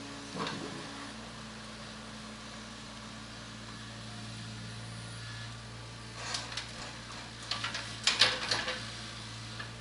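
Diesel engine of a hydraulic excavator running at a steady hum, with short bursts of clanking and scraping, the loudest cluster about eight seconds in.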